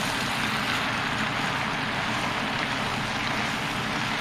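Steady sizzling hiss of a beef-and-pasta stir-fry cooking in a hot pan, with a faint low hum underneath.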